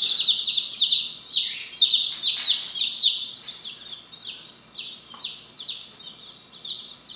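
A brood of day-old Light Brahma chicks peeping: a rapid stream of short, high, falling peeps, crowded at first and thinning out and growing quieter after about three seconds.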